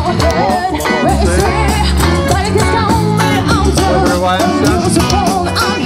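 Live cover band playing amplified music: electric guitars and a drum kit with a steady beat, a heavy bass line and a wavering melody on top.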